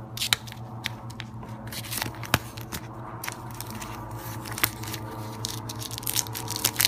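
Packaging of a phone case being opened and handled: irregular rustling, scraping and tearing with several sharp clicks. A steady low hum runs underneath.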